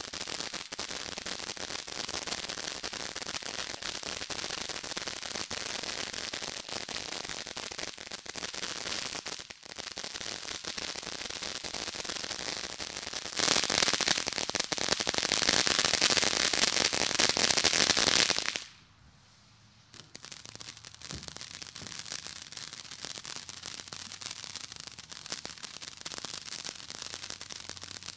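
Consumer firework fountain spraying with a steady crackling hiss. It gets louder for several seconds about halfway through, breaks off into near silence for a second or so, then crackles on more quietly.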